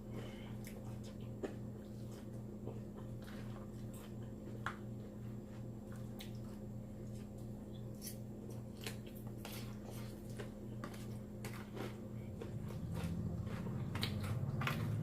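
Close-up chewing of a mouthful of salad: irregular wet clicks and smacks of the mouth, over a steady low hum. A low rumble builds in the last few seconds.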